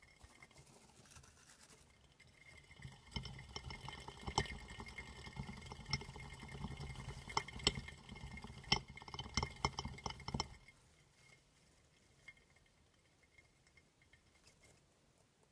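A plastic flying-saucer exercise wheel spinning under a running dwarf hamster: a low rattling rumble with scattered sharp clicks, which stops abruptly about ten seconds in.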